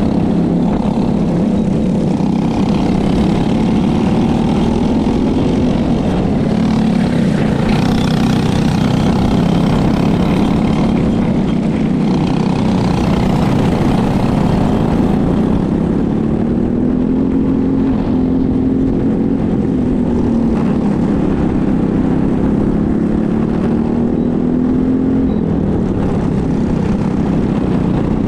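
Racing go-kart engine running at speed, heard from the kart's own onboard camera, its pitch rising and falling as it accelerates and lifts through the corners.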